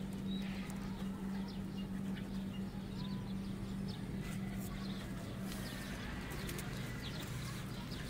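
A steady low hum, with faint short bird chirps and scattered light clicks over it.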